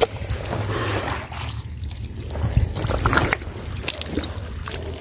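Shallow water trickling and splashing over mud, with scattered small clicks.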